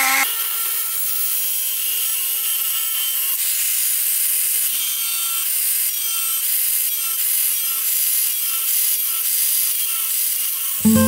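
Angle grinder with a thin cut-off disc cutting through truck leaf-spring steel: a steady motor whine over the hiss of the disc biting the metal. Acoustic guitar music starts right at the end.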